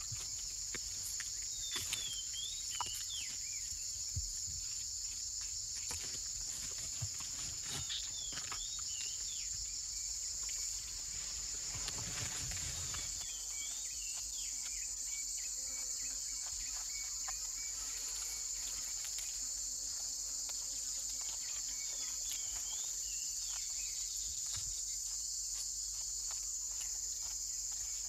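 Dense, steady, high-pitched chorus of rainforest insects. Small groups of short chirping calls recur every several seconds, with a few faint clicks.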